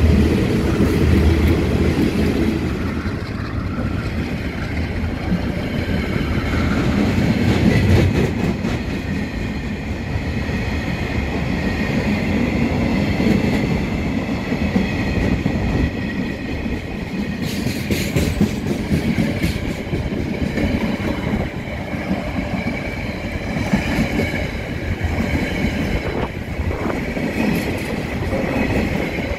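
Diesel freight train passing close by. The trailing locomotive's engine rumble is strongest in the first couple of seconds, then a long string of container and flat wagons rolls past with steady wheel-on-rail rumble and clatter.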